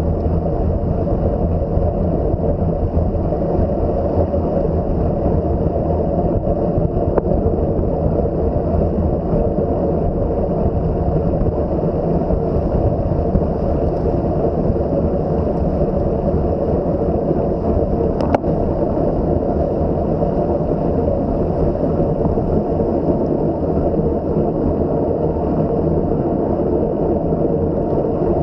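Steady wind rushing and buffeting over the microphone of a camera riding along on a moving bicycle, a low unbroken rumble; a single faint click about eighteen seconds in.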